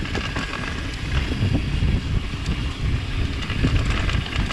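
Wind buffeting an action camera's microphone as a mountain bike rides fast down a dirt trail, with a steady low rumble of tyres on the dirt and frequent knocks and rattles over bumps.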